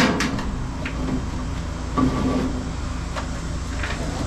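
Knocks, scrapes and rustles of 12-2 electrical cable being pulled by hand and fed along wooden ceiling joists. A sharp knock comes at the start and another about two seconds in, over a steady low hum.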